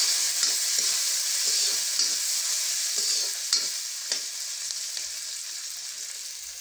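Sliced onion and garlic sizzling in hot oil in a kadhai while a steel spoon stirs them, scraping and knocking against the pan now and then. The sizzle slowly fades toward the end.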